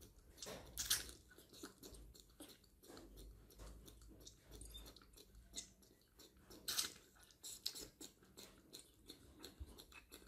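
Two baby monkeys sucking milk from plastic feeding bottles: a run of faint wet clicks and smacks, with a louder click about a second in and another near seven seconds.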